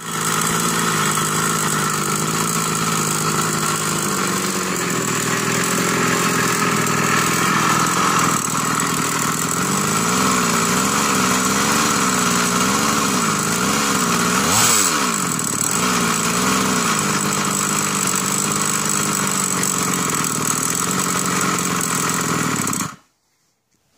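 HPI Baja 5T's small two-stroke petrol engine running on its first start after the truck was stripped and cleaned, its pitch wavering up and down in stretches through the middle. It cuts off suddenly about a second before the end.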